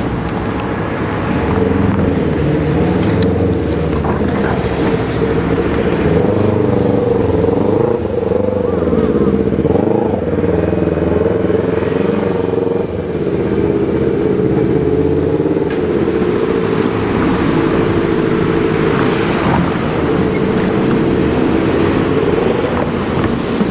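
A vehicle's motor running steadily, a loud low hum with many pitched lines that waver slightly in pitch.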